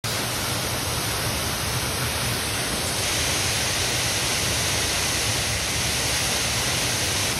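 Steady, very loud crash of water from a broken underground pipe, a jet shooting 30 to 40 feet into the air and pouring down like very hard rain. The filmer takes it for a burst water or sewer main. The rush grows a little hissier about three seconds in.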